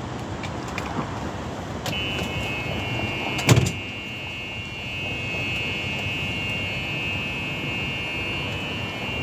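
A steady high electronic buzz starts with a click about two seconds in and keeps going, and a single loud thump comes about a second and a half later, over a steady background hiss.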